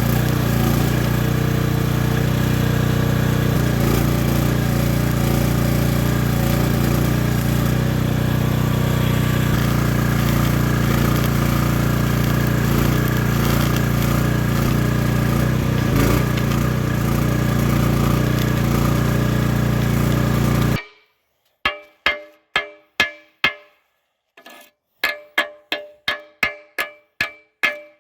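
A loud, steady mechanical drone with hiss from the welding work, which cuts off suddenly about three-quarters of the way through. Then comes a string of sharp, ringing metal strikes, two to three a second: a hammer knocking slag off fresh stick welds on the steel thumb.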